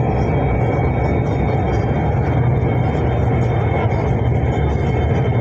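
Cabin noise of the Lahore Orange Line electric metro train running at speed: a steady low rumble of the wheels on the rails, with a thin, steady high tone over it.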